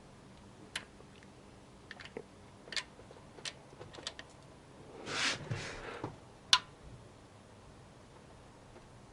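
Scattered metal clicks and clinks of a socket wrench on the camshaft bearing cap nuts as they are undone one by one, with a short scraping rush about five seconds in and a sharp clink, the loudest sound, at about six and a half seconds.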